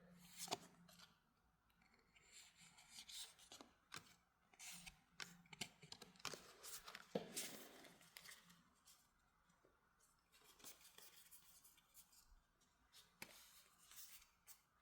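Faint, irregular rustles and clicks of paper trading cards being handled and flipped through one by one.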